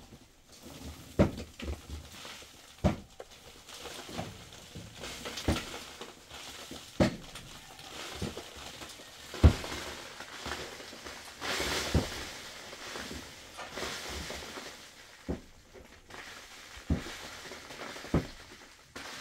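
Irregular knocks and taps, roughly one every second or two, the loudest about halfway through, with a brief hissing rustle a little after the middle.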